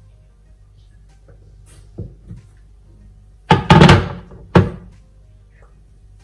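Thuds and knocks of things handled in a kitchen: two light knocks about two seconds in, then a loud cluster of thuds a little past the middle and one more sharp thud just after.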